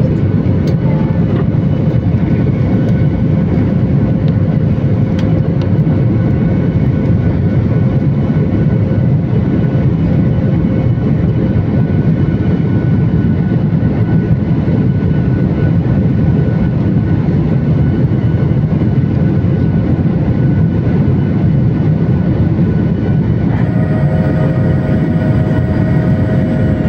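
Steady jet engine and airflow noise inside an airliner cabin, heard from a window seat over the wing. A set of steady higher whining tones joins near the end.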